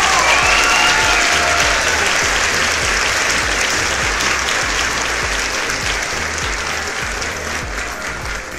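A crowd applauding, a dense steady clapping that is loudest at the start and slowly dies down.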